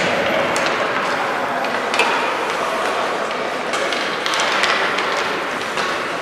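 Youth ice hockey play in an indoor rink: skate blades scraping the ice under a steady hiss, with scattered knocks of sticks and puck, the sharpest about two seconds in.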